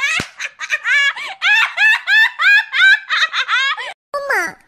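A woman's high-pitched giggling laughter in quick bursts, about four a second. It breaks off about four seconds in, and a short falling vocal sound follows near the end.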